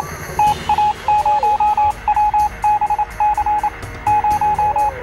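Background music: an electronic track with a repeated staccato beeping note, short sliding synth tones and a steady ticking beat.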